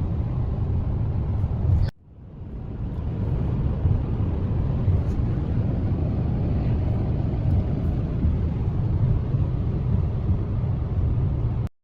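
Steady low rumble of road and engine noise inside a moving car. It cuts out about two seconds in, fades back up, and stops abruptly near the end.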